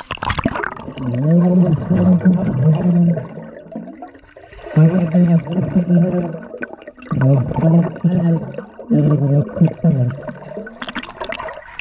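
A splash as the camera goes under, then a man's voice underwater, heard muffled and low through the water in four stretches with short pauses, with bubbling.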